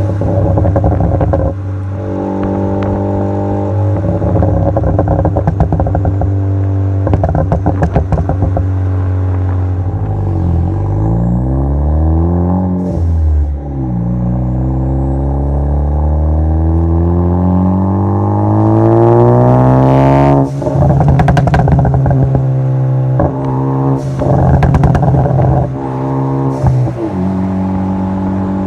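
Ford Focus ST's turbocharged four-cylinder through a Cobb exhaust with catless downpipe, revving up under acceleration and crackling and popping on lift-off, the pops coming from a crackle-and-pop tune. One long pull climbs in pitch and ends in a sudden lift with a rapid string of pops, and shorter bursts of crackles come at several other points.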